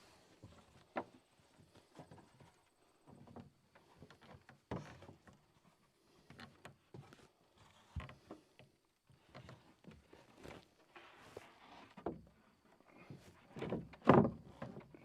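Irregular wooden knocks and thumps of hand carpentry work with boards and a hammer, the loudest and longest thump near the end.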